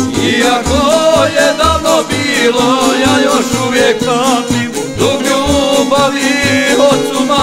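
Bosnian izvorna folk music: a violin carries a wavering melody over the band's steady bass beat.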